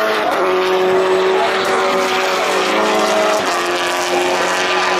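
Rallycross race car's engine running hard past the stands, a steady high-revving note that steps down in pitch about three and a half seconds in, as at a gear change or a lift off the throttle.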